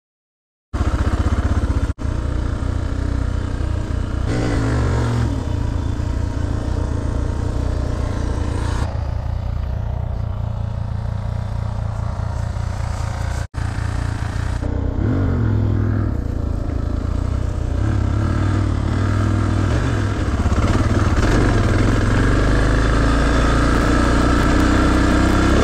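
Suzuki DR650 motorcycle's single-cylinder four-stroke engine running under way. Its pitch rises and falls with the throttle and climbs steadily near the end. It starts about a second in and cuts out briefly twice.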